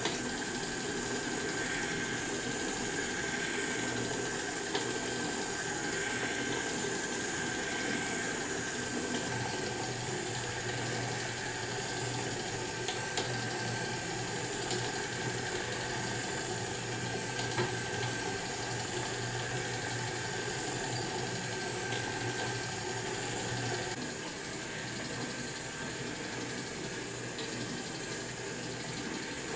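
Motorized kinetic sculpture running: its electric motor, chain drive and spinning propeller make a steady whirring rush with a faint steady whine and a low hum, and a few light ticks. The sound drops a little in level about 24 seconds in.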